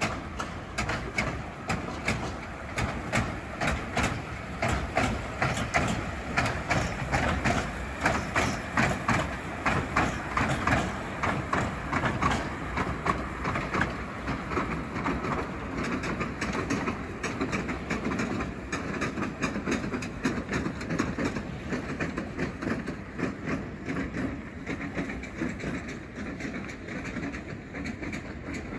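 The Hythe Pier Railway's narrow-gauge electric train running along the pier, its wheels clicking rapidly and steadily over the rail joints. The clicking grows fainter in the last third as the train draws away.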